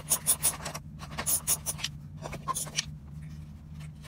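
Ratchet wrench with a 10 mm socket clicking in quick runs, about six clicks a second, as it backs off nuts. The clicking stops about two seconds in, and a few softer scrapes of the nuts being handled follow.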